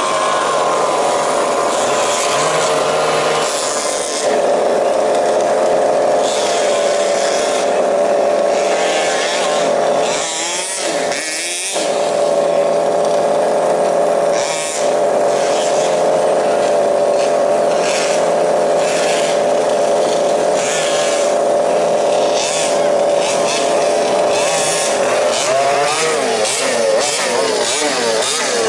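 Several 1/5-scale RC cars' small two-stroke petrol engines running together, a steady buzzing drone with throttle blips making the pitch swing up and down about ten seconds in and again near the end.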